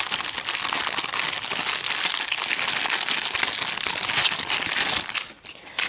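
Clear plastic Happy Meal toy bag crinkling and crackling steadily as hands work it open, dying down to a few scattered crackles after about five seconds.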